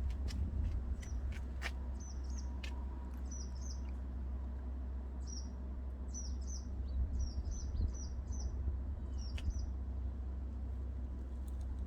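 A small bird giving short, high chirps in quick runs, over a steady low rumble. There are a few sharp clicks in the first couple of seconds.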